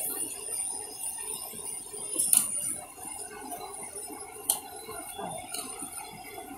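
Metal spatula scraping and clinking against a wok as noodles are stir-fried, with a few sharp clinks standing out.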